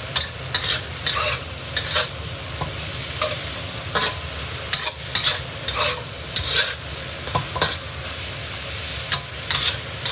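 Metal spatula scraping and clacking against a wok, several strokes a second in an uneven rhythm, as sliced luffa is stir-fried over high heat, with a steady sizzle of the frying underneath.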